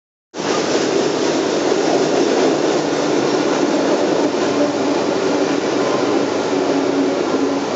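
Freight train of hopper cars and Union Pacific diesel locomotives crossing a wooden trestle bridge, a loud steady rumble that cuts in abruptly a moment in.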